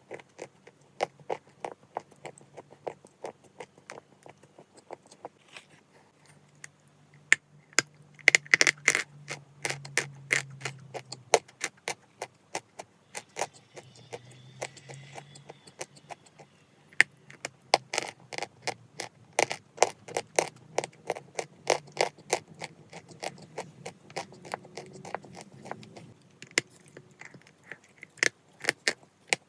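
Chalk being bitten and chewed close to the microphone: a continuous run of crisp crunches and cracks, several a second.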